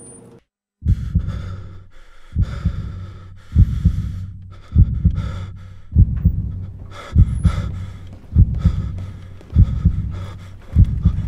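Heartbeat sound effect: a slow, heavy double thump about every 1.2 seconds, with breathing between the beats, starting after a moment of dead silence about a second in. It stands for a panic attack coming on.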